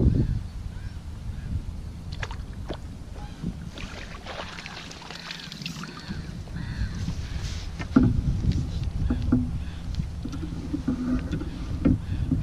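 Water splashing and knocking as a fishing pole and landing net are handled at the water's edge, with scattered sharp clicks and a louder bump about eight seconds in. Geese honk now and then in the background.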